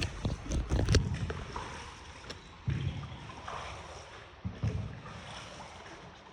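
A small paddled boat on water, with sloshing and several separate low thumps a second or two apart.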